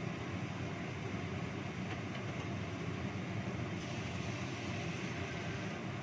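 Steady low rumbling noise of a gas stove burner under a wok of pigeons braising in spiced broth.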